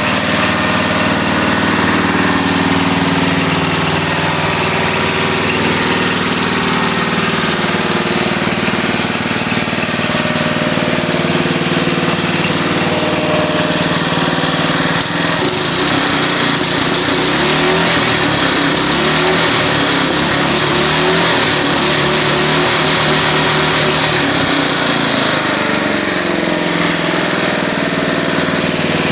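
Murray riding lawnmower's engine running steadily through its new exhaust, kind of loud. About halfway through, the note turns rougher and wavers.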